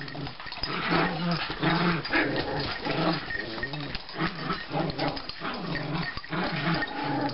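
Small Chihuahuas play-fighting, growling in a continuous string of short, rumbling growls.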